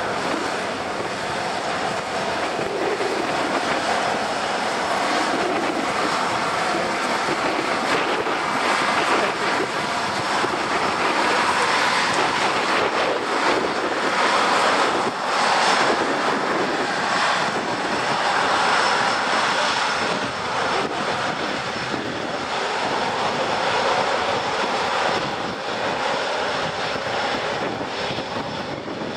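Jet engines of an Airbus A319 (CFM56 turbofans) running as the airliner taxis: a steady rushing roar that swells midway and eases a little near the end.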